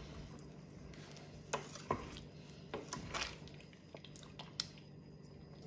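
Wooden spoon stirring thick tomato curry sauce in a stainless steel pot: soft squelching with a few light knocks of the spoon against the pot.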